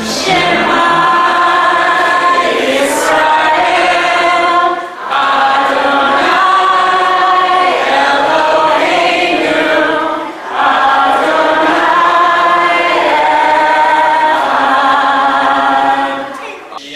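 A choir singing in long, sustained phrases, with short breaks about five and ten seconds in. It fades out near the end.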